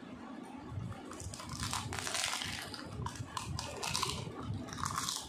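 Crisp, hollow fried fuchka (pani puri) shell filled with spiced mashed potato being bitten and chewed: a dense run of crackling crunches starting about a second in.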